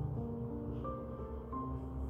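Instrumental background music: a slow run of held notes, each changing pitch every second or so.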